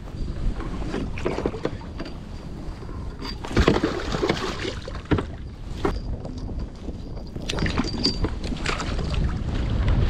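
Wind on the microphone and water on the hull, with scattered knocks and rustles of fishing line and rod being handled in a plastic sit-on-top kayak. The wind grows louder near the end.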